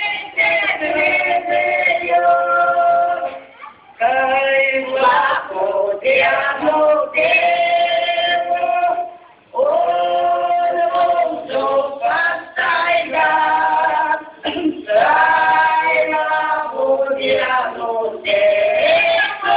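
A small group of voices, mostly women's, singing a slow song without accompaniment, holding long notes in phrases of a few seconds with short breaths between them.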